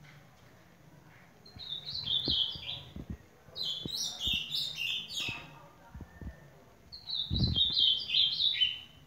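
Ultramarine grosbeak (azulão) singing three short phrases, each a run of clear whistled notes stepping down in pitch and lasting about a second and a half to two seconds. A low thump comes during the last phrase.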